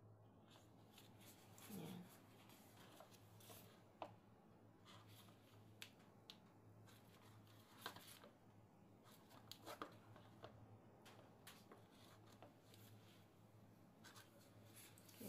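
Near silence: faint rustling and a few soft clicks and taps as gloved hands handle a plastic pastry press, over a low steady hum.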